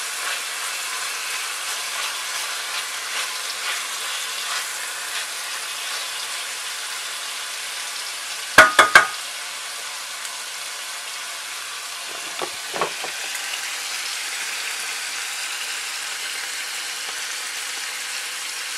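Bacon strips sizzling in hot garlic olive oil in a ceramic-coated frying pan, a steady hiss, with a wooden stirring stick scraping the pan in the first seconds. About nine seconds in come three quick sharp knocks, and two fainter knocks about three seconds later.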